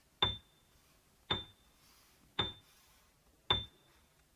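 A short, high clinking ping repeated four times, evenly about once a second, like a ticking timer cue marking a pause.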